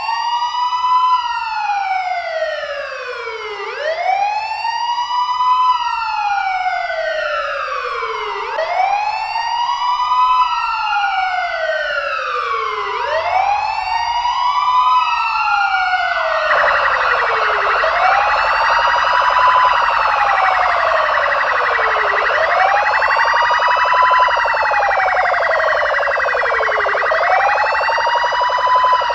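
Ambulance siren wailing in repeated cycles, each a quick rise in pitch followed by a slower fall, about every four and a half seconds. About sixteen seconds in, a second, rapidly pulsing buzzy tone joins and keeps on under the wail.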